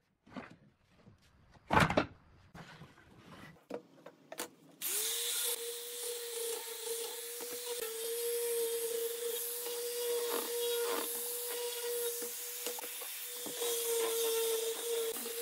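A few wooden knocks and clunks, the loudest about two seconds in. Then, about five seconds in, an angle grinder with a rubber-backed sanding disc starts and runs steadily with a high whine and a rasping hiss as it sands a wooden board.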